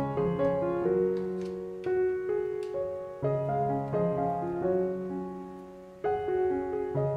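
Background piano music: a slow melody over held chords, with the notes changing about once a second.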